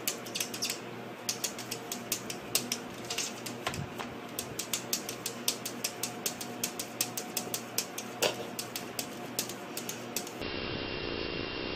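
A kitten's paws and claws tapping and scrabbling on a mirror's glass as it bats at its own reflection: rapid, irregular clicks, several a second. Near the end the sound cuts to a kitten purring.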